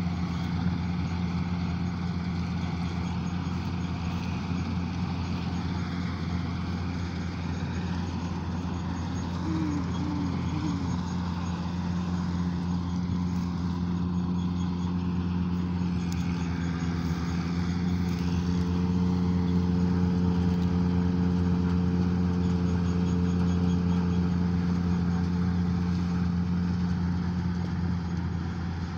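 Kartar combine harvester's diesel engine and threshing machinery running steadily under load while harvesting, a deep, even hum. It grows a little louder about two-thirds of the way in.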